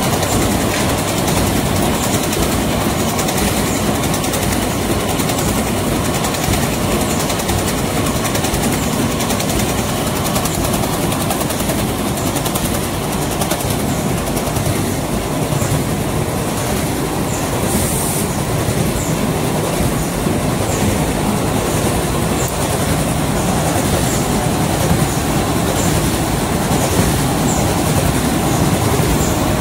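Automatic flexo printer slotter die-cutter with stacker running in production, feeding corrugated carton blanks: a loud, steady mechanical clatter of rollers, feeder and belt conveyors, with light high ticks recurring throughout.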